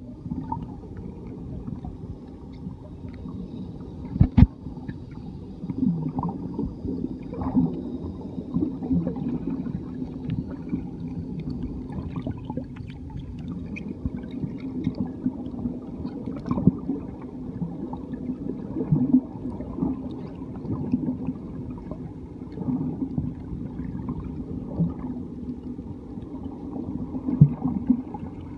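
Muffled underwater ambience picked up by a camera below the surface: a steady low rumble with scattered small clicks and knocks, and a sharper knock about four seconds in.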